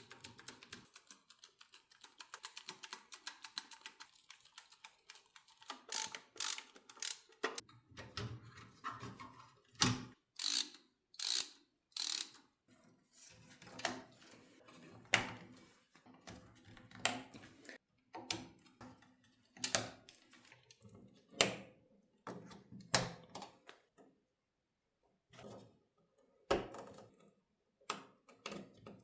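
Hands-on PC assembly: a run of rapid ratcheting clicks lasting about six seconds, then scattered sharp clicks, clacks and knocks as parts and tools are handled.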